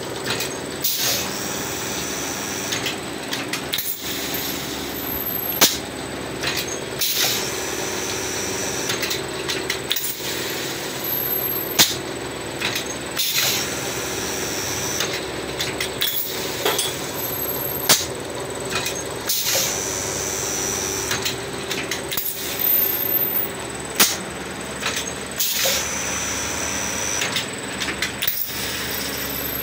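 Small plastic injection moulding machine working through its cycle about every six seconds: a sharp knock each cycle, smaller clicks between, and a hiss lasting about a second and a half, over a steady machine hum.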